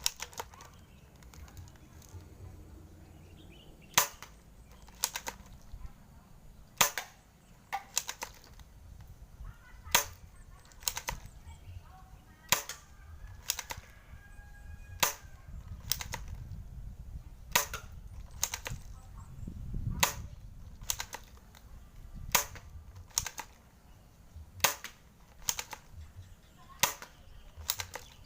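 Airsoft Lee-Enfield Mk III bolt-action replica rifle being worked and fired: sharp snapping clicks about every second, loud ones alternating with softer ones.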